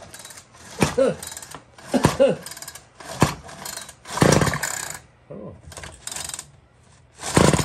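Small two-stroke engine of a Bolens string trimmer being pull-started and coughing without catching, with about seven short irregular bursts about a second apart, the loudest about four seconds in. The men put the coughing down to the engine being flooded with fuel.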